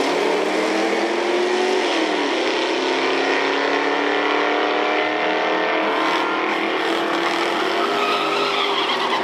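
Drag-racing cars at full throttle down the strip, engines rising steadily in pitch as they accelerate, with a drop in pitch about two seconds in like a gear change.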